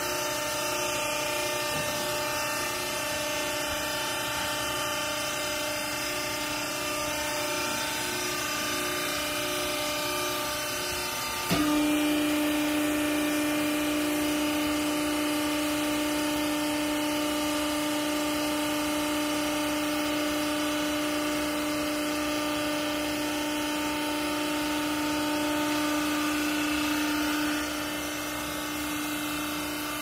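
Hydraulic power unit of a vertical used-clothes baler running with a steady motor hum. A bit over a third of the way in it changes with a click to a louder, steadier, lower note, which holds until near the end and then drops back.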